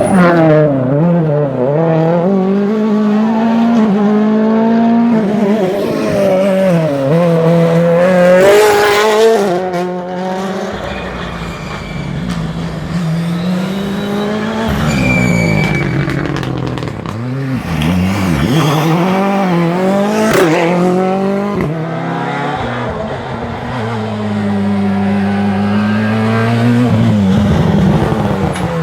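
Rally car engines revving hard, the pitch climbing and dropping again and again through gear changes and lifts off the throttle. The loudest stretch is about eight to nine seconds in.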